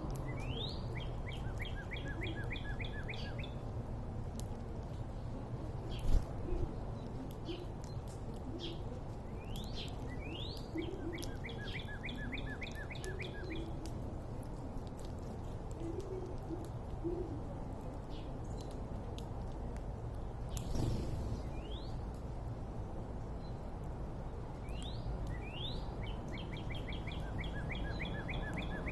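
A songbird singing the same song three times, each a quick rising note followed by a fast series of repeated notes lasting two to three seconds. Soft low calls come in between, over a steady low rumble.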